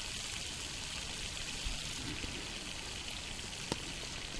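Fish frying in oil in a pan over a wood fire: a steady sizzling hiss, with one faint click near the end.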